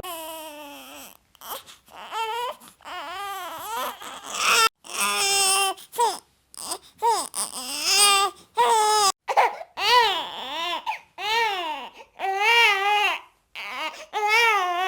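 Newborn baby crying: about a dozen high-pitched wails that rise and fall, separated by short breaths.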